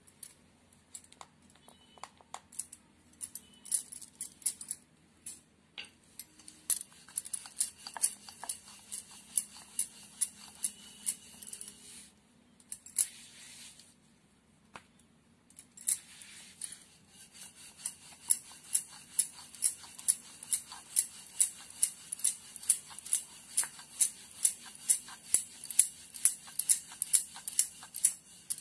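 Rolling pin working paratha dough on a marble rolling board, clicking against the board with each stroke in a steady rhythm of about two or three a second through the second half. Before that, scattered taps and clicks as the dough is handled on the board.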